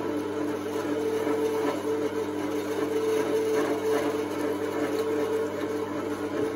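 Alveored electric meat grinder running steadily as it minces meat, a constant motor hum with mince pushing out through the plate.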